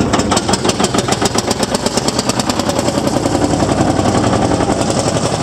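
1952 Field Marshall Series 3A tractor's single-cylinder two-stroke diesel engine running as the tractor drives along, its exhaust beating in a fast, even rhythm.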